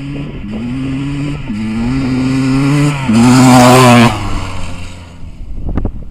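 Kawasaki KX250 two-stroke motocross bike accelerating past, its engine note climbing and dropping back with three quick upshifts. It is loudest as it goes by about three seconds in. The throttle shuts off about a second later and the sound fades away.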